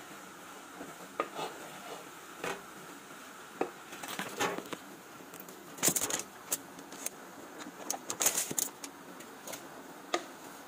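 Cooking utensils knocking and clinking against pots and pans: scattered single knocks, with two louder bursts of clatter a little past the middle and again about two seconds later.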